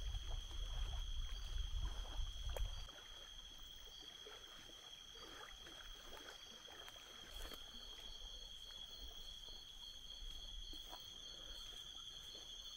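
Night insect chorus: two steady, high-pitched trills. A low rumble fills the first three seconds, and from about halfway through, another insect adds a quick, even run of short chirps, about four a second.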